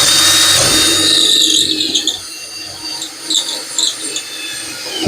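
Power drill boring a hole through a trailer wall: a high whine with squealing, loud for about two seconds, then lighter and uneven.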